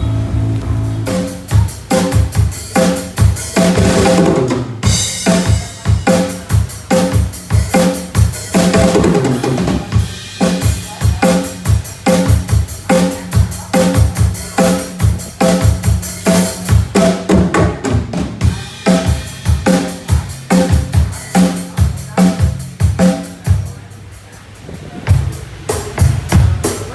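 A band playing, with the drum kit to the fore: a steady beat of kick drum, snare and cymbals over held pitched notes. The hits thin out briefly near the end, then come back.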